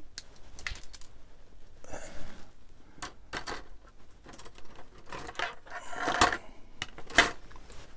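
Hard plastic model-kit sprues and hobby tools being handled and set down on a cutting mat: an irregular string of light clicks, taps and rattles, the sharpest two near the end.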